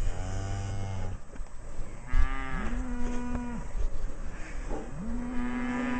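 Cattle mooing: three long moos, a low one at the start, then two higher, held calls about two seconds in and near the end.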